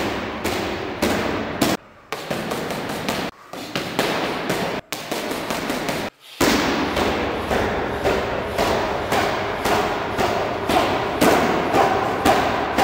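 Kicks and punches smacking a held Muay Thai pad, sharp slaps repeating at about two a second, with a few abrupt breaks where the sound cuts out.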